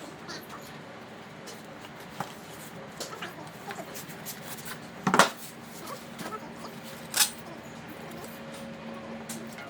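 Unboxing a golf wedge set: the box and packaging handled, with scattered light rustles and clicks, and two louder knocks about five and seven seconds in.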